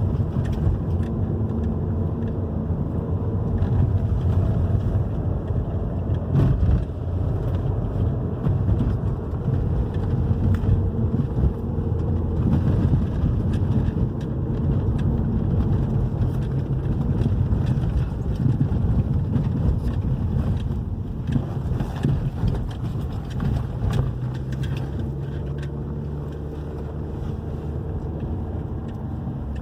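Hyundai i30 being driven, heard from inside the cabin: steady engine and tyre rumble with a few short knocks over the road surface. The suspension has new stabilizer links and anti-roll bar bushings.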